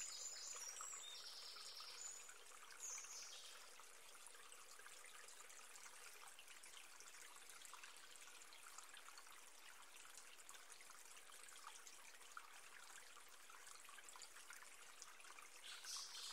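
Near silence with a faint trickle of running water, and a few faint high chirps in the first three seconds.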